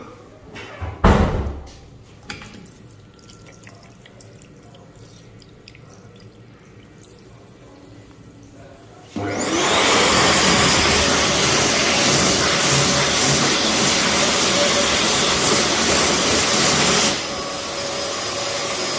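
A World Dryer Airforce high-speed hand dryer starts abruptly about halfway through and blows a loud, steady rush of air over a hand for about eight seconds. It drops to a softer, lower blow near the end as the hand comes out from under it. Earlier there is a single loud knock, then quiet.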